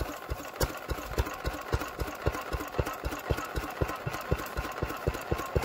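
Vintage single-cylinder stationary engine running steadily, its exhaust beating about five times a second.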